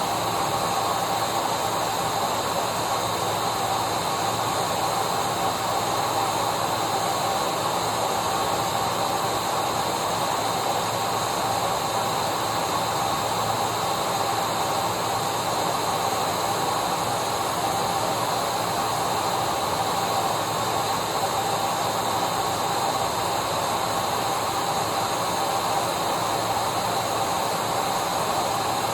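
Household vacuum cleaner running steadily: a constant rushing hiss with an unchanging motor whine.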